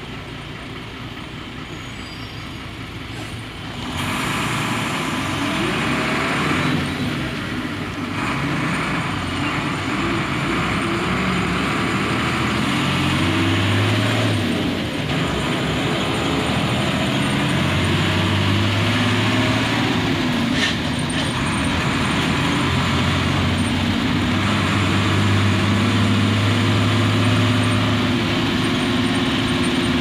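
Mercedes-Benz OF 1318 bus diesel engine running on the move. It gets louder about four seconds in, and the engine note climbs and drops in steps several times as the bus pulls away and works through the gears.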